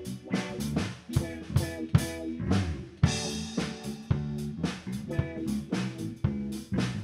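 Music with a drum kit keeping a steady beat over pitched instrument notes.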